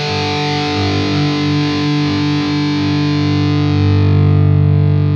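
B.C. Rich Shredzilla electric guitar on its bridge pickup, tuned down to A standard, through heavy distortion: a fast run ends on a chord that is struck and left to ring, held steady throughout.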